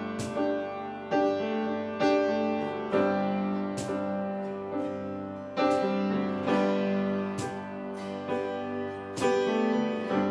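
Slow instrumental music from a small ensemble of piano, acoustic guitars and cello, with chords struck about once a second over held low notes.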